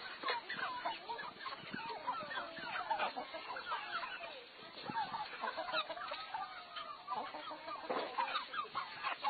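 Chickens clucking, a steady run of many short clucks and calls.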